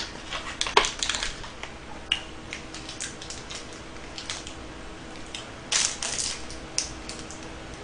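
Crinkling and clicking of a small plastic-wrapped KitKat as it is taken from its cardboard box and its wrapper torn open, with a louder rustling tear about six seconds in.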